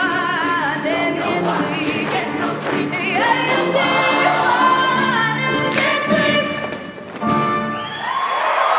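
Large mixed show choir singing an up-tempo number with music. Near the end it lands on a long held chord.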